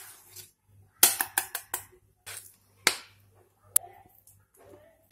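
A utensil scraping and knocking against a steel bowl as thick cake batter is poured out of it into a steel tin. The sound is a series of short sharp clicks and knocks: a quick run of them about a second in, a few single ones after, and one bright metallic tick near the four-second mark.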